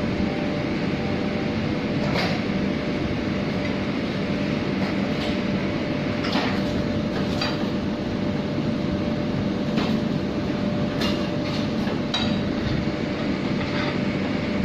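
Steady mechanical room hum with a constant thin tone, broken by a few short clicks.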